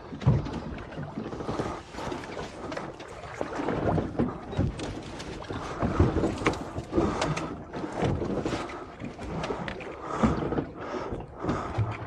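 Small fishing boat rocking in a swell: water slapping against the hull with irregular knocks, and wind on the microphone.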